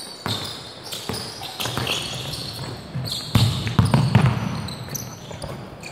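Basketball dribbled on a hardwood gym floor, a run of bounces that grow louder about three and a half seconds in as the ball comes close, with short high squeaks of sneakers on the court.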